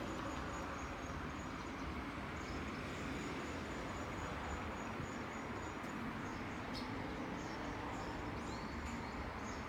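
Outdoor morning ambience: a steady low hiss and rumble, with a rapid train of small high-pitched chirps through the first half. Scattered chirps, a short rising call and a couple of faint clicks come later.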